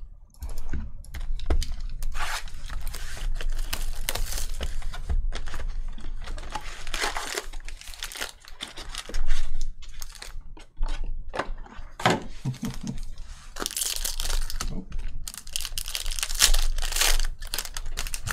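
Foil trading card pack crinkling and tearing as it is handled and ripped open by hand, with a loud rip about nine seconds in.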